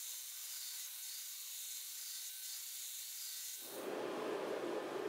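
Abrasive belt on a surface-grinding attachment grinding steel bars: a steady hiss with a faint hum. About three and a half seconds in it changes abruptly to the steady, fuller rushing noise of a gas forge burner.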